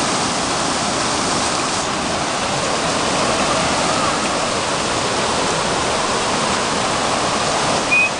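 Floodwater from an overflowing creek rushing across a road: a steady, loud rush of fast, churning water.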